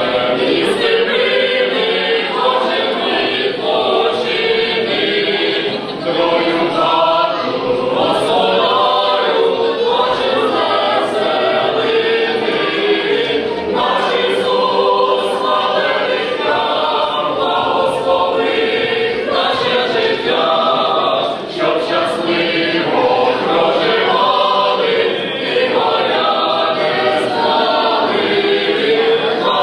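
Mixed choir of men's and women's voices singing a Ukrainian Christmas carol a cappella, in long phrases with short breaks between them.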